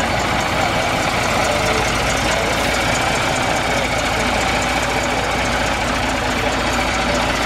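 Double-decker bus diesel engine idling steadily, close by.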